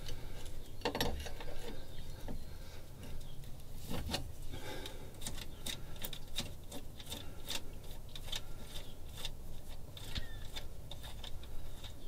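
Socket ratchet clicking as the nut on a battery terminal is loosened, then light, irregular metallic clicks and rubbing as the nut and cable lug are worked off the terminal stud by hand.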